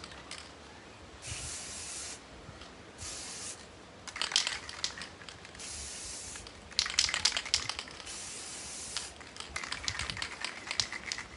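Aerosol spray-paint can spraying in four short bursts of hiss, each under a second or so long. Between them come spells of louder sharp rattling clicks.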